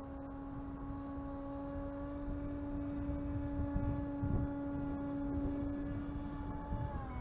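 Radio-controlled X-29 model plane's motor and propeller giving a steady hum that creeps slowly up in pitch, then drops quickly near the end as the throttle is eased back. Strong wind rumbles on the microphone underneath.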